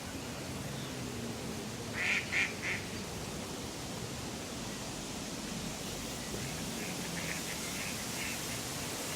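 City park ambience: a steady wash of background noise, with a bird giving three loud calls about two seconds in and a fainter run of short calls near the end.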